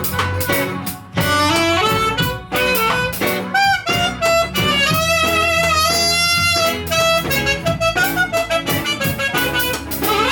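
Live reggae band playing an instrumental passage: a reed instrument carries the melody, holding one long note about five seconds in, over drums and bass.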